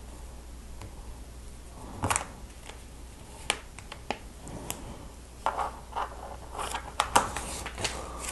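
Lego Technic plastic pieces being handled and pressed together: scattered sharp clicks and short rattles, a louder rustle about two seconds in and a busier run of clicks in the second half.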